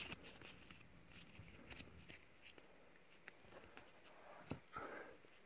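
Faint handling of a stack of trading cards: scattered soft clicks and slides of card stock as the cards are shifted between the hands, with one sharper click about four and a half seconds in.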